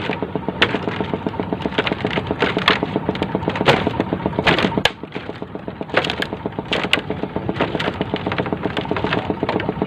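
A small engine running steadily with a fast, even beat, with scattered sharp knocks and clicks over it.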